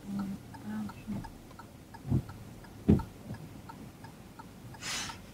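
A car's turn-signal indicator ticking steadily inside the cabin, about two to three clicks a second. Two dull knocks come about two and three seconds in, and a short hiss near the end.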